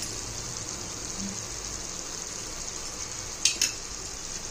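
Onion masala with ginger-garlic paste frying in a kadai: a steady sizzle, with two sharp knocks of the wooden spatula against the pan about three and a half seconds in.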